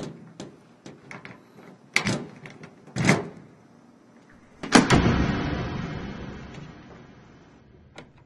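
Small metallic clicks and scrapes of a wire pick worked in a metal locker's lock, with two louder clacks about two and three seconds in. Near the middle comes a loud sudden clunk that dies away slowly over about three seconds.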